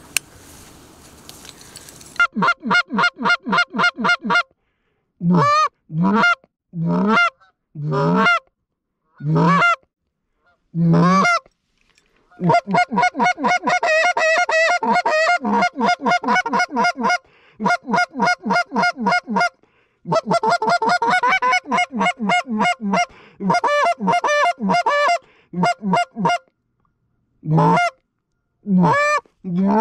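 Canada geese honking. After a faint hiss, two-syllable honks that jump from low to high begin about two seconds in. They come in fast runs of several calls a second, with short gaps between the bunches.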